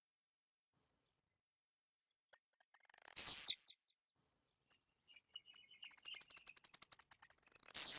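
Blue-black grassquit (tiziu) singing: two high-pitched songs, each a run of quick ticks that ends in a loud, sharp downslurred note, the first about two and a half seconds in and the second, with a faster and longer run of ticks, at the very end.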